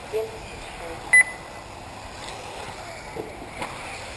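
A single short, high electronic beep about a second in, over faint background noise and a brief voice near the start.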